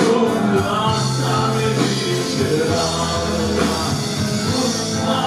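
Anatolian rock band playing live: electric guitar, bass and drums, with a steady loud full-band sound.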